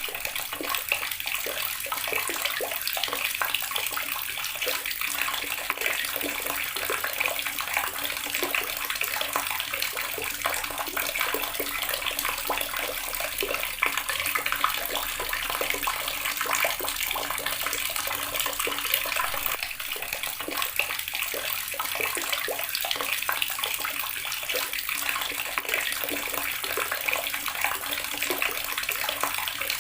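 Water running steadily from a tap and splashing into a basin or tub below, a continuous spattering rush.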